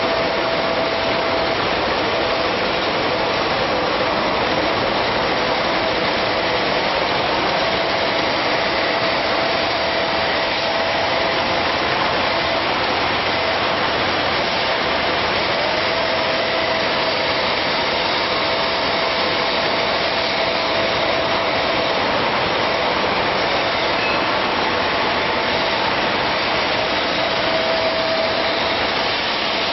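Pop-up facial tissue production line running: a steady, dense machine noise with a faint tone that fades in and out.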